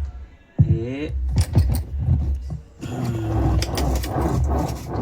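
Clinks and knocks of metal parts being handled while a washing machine gearbox is fitted, over a steady low rumble. A brief pitched sound comes in about half a second in.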